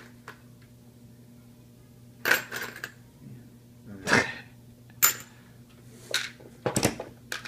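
Small hard parts clattering and clinking in short bursts, about five times, as they are rummaged through and handled.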